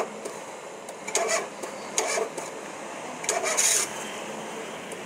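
Short scrapes, rubs and knocks of hands and tools working on parts in a car's engine bay, coming in three or four brief bursts about a second apart; the last, a little over three seconds in, is the longest and hissiest.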